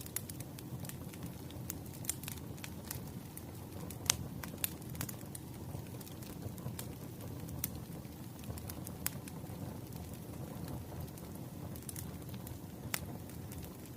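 Firewood burning in a fireplace: sharp crackles and pops over a low, steady rumble of flame, the loudest pop about four seconds in.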